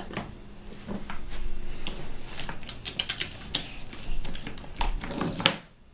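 Wooden toy train cars and track pieces clicking and clattering as a child handles them, a quick run of sharp wooden clicks through the middle.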